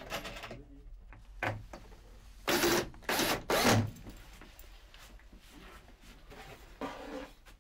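Power drill running in short bursts, driving screws as furniture is fixed in place: one brief burst, then three in quick succession in the middle, and a weaker one near the end.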